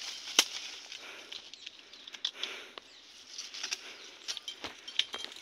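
Leafy, thorny branches rustling as they are pulled and pushed aside by hand, with a string of sharp twig cracks and snaps; the loudest snap comes about half a second in.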